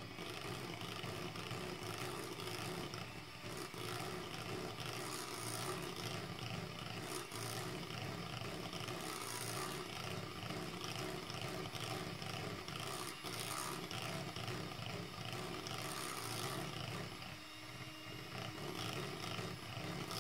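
Electric hand mixer running steadily, its twin wire beaters whirring through thick cake batter in a glass bowl, dipping briefly in level near the end.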